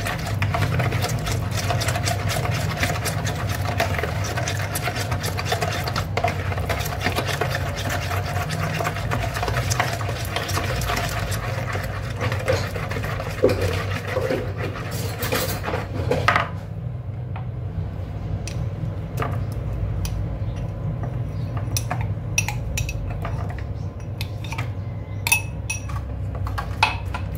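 Hand whisk beating batter in a plastic bowl: rapid, continuous tapping and scraping of the whisk against the bowl. About two-thirds of the way through it turns to slower, separate taps as chopped dates are stirred in, with a steady low hum underneath throughout.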